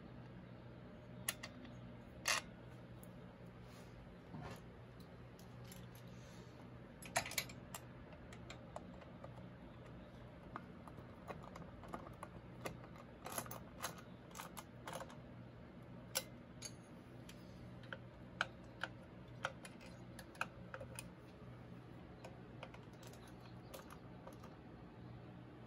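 Irregular light clicks and taps of metal parts and hand tools being handled at a motorcycle's S&S carburetor and air cleaner, a few sharper knocks among them, over a steady low hum.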